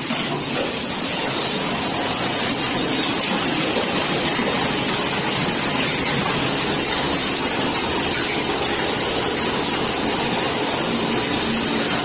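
TUPO 9 automatic wall-plastering machine running, a steady mechanical noise as its carriage travels along the mast, pressing and troweling mortar onto the wall.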